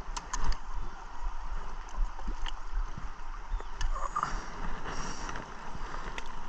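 Water against an aluminum boat hull, with wind noise and a steady low hum, broken by a few light clicks and knocks.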